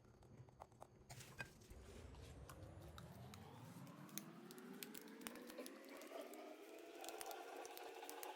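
Faint, irregular sticky clicks and crackles of slime being squished and mixed, with a faint tone slowly rising in pitch behind them from about halfway through.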